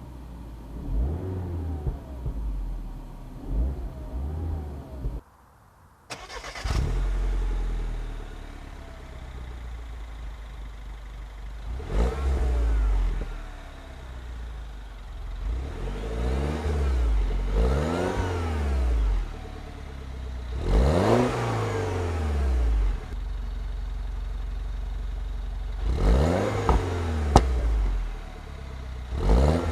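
2011 Mini Cooper S (R56) 1.6-litre turbocharged four-cylinder revving up and falling back several times through its stock exhaust, with sharp pops and bangs as the revs drop on the overrun, brought on by the sport button. The sound cuts out for about a second around five seconds in.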